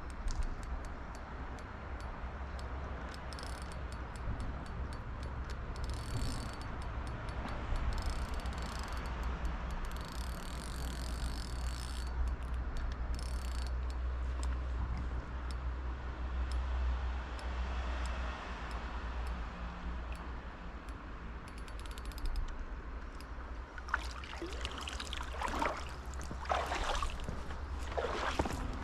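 Spinning fishing reel being cranked, its mechanism ticking rapidly, over the steady rush of a flowing river and a low rumble. Near the end come several louder, irregular scraping and splashing sounds.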